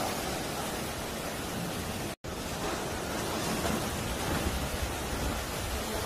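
Sea waves surging and washing over shoreline rocks: a steady rush of surf and foaming water. The sound cuts out for a split second about two seconds in.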